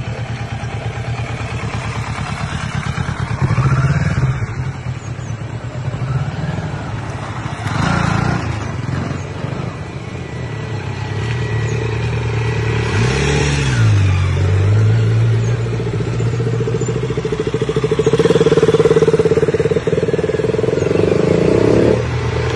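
Motorcycles riding slowly past one after another, their engines running low and steady. A little past halfway one engine note dips and picks back up, and a louder engine note carries the last few seconds.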